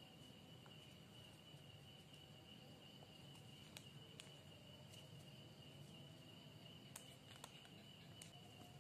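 Near silence: room tone with a faint, steady high-pitched tone and a few soft ticks scattered through it.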